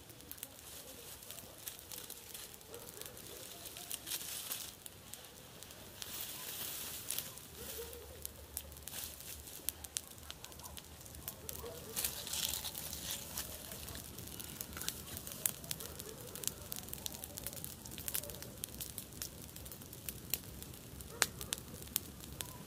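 Wood campfire crackling, with a steady stream of sharp pops and snaps and a few short spells of louder hissing.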